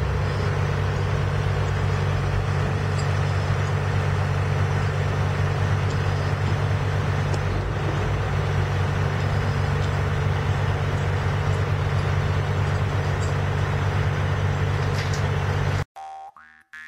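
Cat 980H wheel loader's diesel engine (a Cat C15 six-cylinder) running at a steady speed as the loader drives slowly, a constant low drone with no revving. Near the end it cuts off abruptly and guitar music begins.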